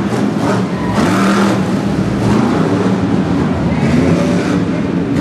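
Off-road race truck's engine revving hard over a dirt course, its pitch rising and falling as the throttle is worked, with a voice over it.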